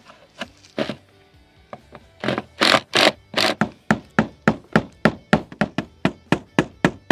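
Hammer blows, a few scattered knocks at first, then from about two seconds in a fast steady run of about three sharp strikes a second.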